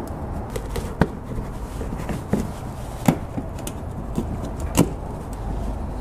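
Metal mud-flap bracket being slid in by hand behind a car's plastic wheel-well liner: a few light clicks and taps, the sharpest about a second in, about three seconds in and near five seconds in.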